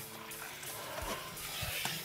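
Kitchen tap running into a stainless-steel sink as boiled soba noodles are rinsed by hand under the stream, with background music over it.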